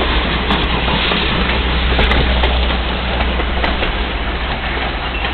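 Wooden railroad passenger coaches rolling past at close range: a steady rumble and rush of wheels on rail, with a few scattered clicks.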